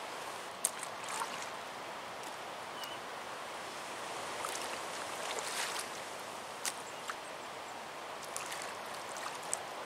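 Steady outdoor lakeside ambience, a hiss of wind and water, with a few light clicks.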